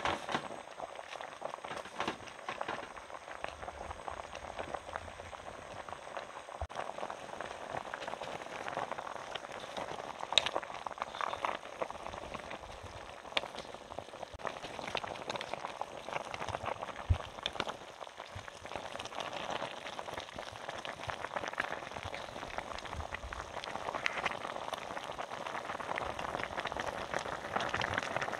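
Braising liquid of beef short ribs bubbling and popping at a boil in an aluminium pot under a layer of vegetables, a steady crackling patter with a few sharp clicks, growing a little louder near the end.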